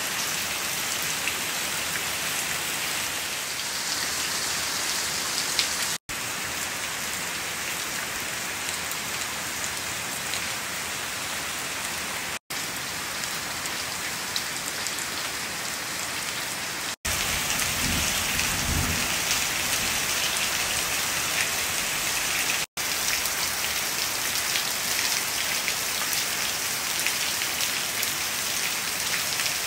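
Steady rain falling, a continuous hiss of drops, with a low rumble for a few seconds about two-thirds of the way through. The sound breaks off for an instant four times.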